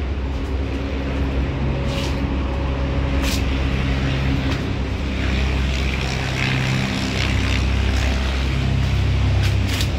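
A motor vehicle's engine running steadily, a low drone, with a few sharp clicks over it.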